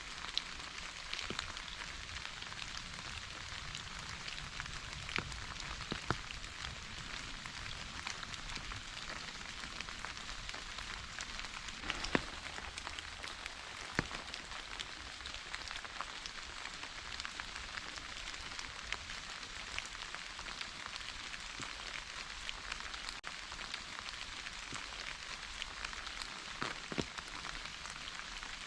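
Steady rain falling, an even hiss with scattered sharp drips and drop ticks standing out.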